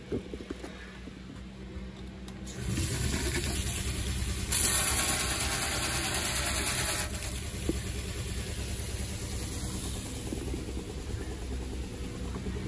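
A boat's freshwater pressure pump starts up and runs steadily. About four and a half seconds in, water sprays from a pull-out faucet into a stainless steel sink with a loud hiss for a few seconds, while the pump keeps running.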